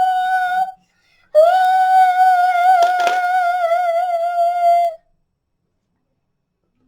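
A child's voice holding a long high-pitched note, humming, in two stretches: a short one that breaks off under a second in, then a longer one that wavers near its end, with a couple of sharp clicks over it.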